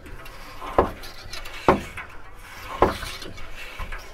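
Glass-removal cutting wire being pulled through the adhesive bead of a van's bonded window: three short squeaking strokes about a second apart, one for each pull as the wire saws through.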